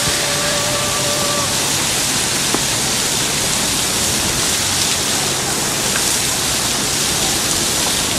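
Steady, even rushing noise with faint voices of a crowd mixed in. A faint held tone sounds in the first second and a half.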